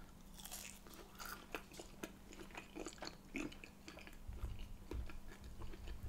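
Close-miked mouth sounds of someone biting and chewing a mouthful of sausage: soft, irregular wet clicks and smacks. About four seconds in, a low rumble joins the chewing.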